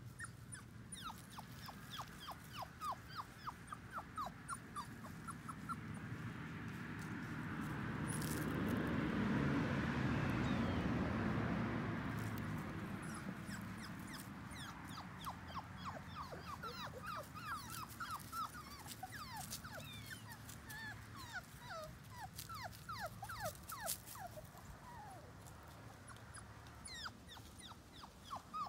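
Five-week-old puppies whimpering: runs of short, high cries that each slide down in pitch, several a second, coming and going. In the middle a rushing noise swells up over several seconds, becomes the loudest sound, and fades away again.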